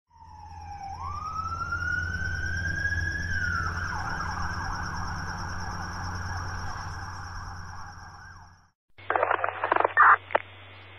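Police siren wailing: it rises in pitch about a second in, holds high and steady, then cuts off suddenly. After a short gap there is a cluster of loud, sharp hits, the loudest part.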